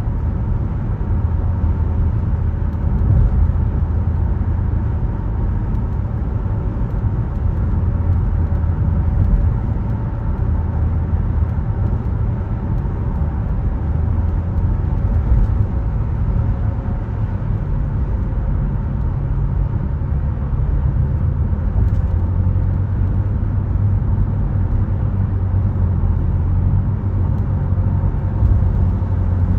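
Car driving along steadily: a continuous low rumble of tyres and engine.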